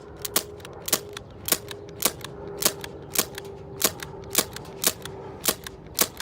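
Red Jacket CO2 airsoft pistol firing BBs in a rapid string, about two sharp shots a second.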